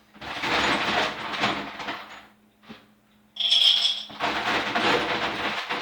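Ice cubes clattering as they are poured into the jar of a Pampered Chef Deluxe Cooking Blender. There are two rattling pours with a short pause between them about two seconds in.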